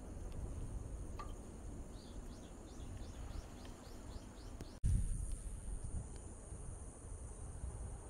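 Jungle ambience: a steady high-pitched insect drone over a low rumble, with a rapid run of about ten chirps, roughly four a second, from a calling animal between two and five seconds in. Just before five seconds in the sound cuts abruptly to another take, in which the insect drone is louder.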